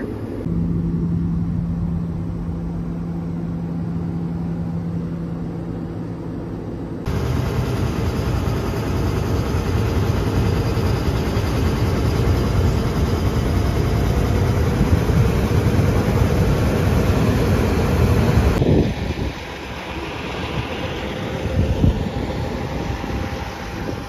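Tractor cab interior: engine drone under a steady hum. About seven seconds in, a cut to the louder running of a John Deere 9870 STS combine heard close up. Near the end, a softer section of engine noise with wind.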